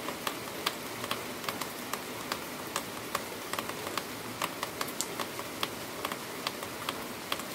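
Heavy rain falling steadily, with frequent sharp, irregular ticks of single drops striking close by.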